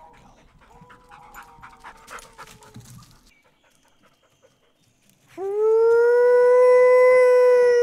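A long howl imitating a wild dog, made to call one in: it starts about five seconds in with a quick rise, holds steady at one pitch and dips at the end. Fainter howl-like tones sound in the first few seconds.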